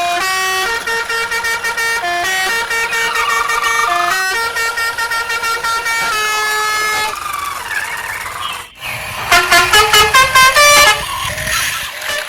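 A tune played in horn-like tones, held notes stepping from pitch to pitch, with a quick run of short notes near the end.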